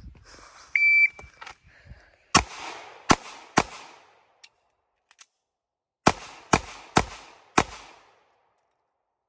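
Shot-timer beep, then seven pistol shots: three quick shots, a pause of about two seconds with the small clicks of a slide-lock reload, then four more shots in quick succession.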